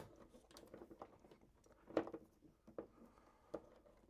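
Faint scattered clicks and taps of hands working cables into a terminal block, the sharpest one at the start and another about two seconds in.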